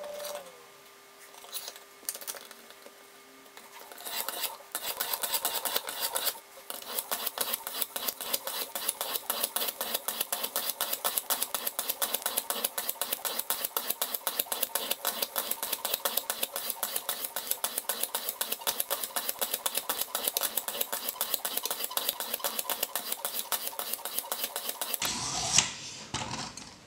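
A 320-grit sharpening stone on the guide rod of a clamp-style knife sharpener, stroked rapidly back and forth along a knife's edge: an even run of gritty scraping strokes, several a second, refining a freshly set 20-degree edge. A few faint clicks come before the strokes begin, and a sharp click follows after they stop near the end.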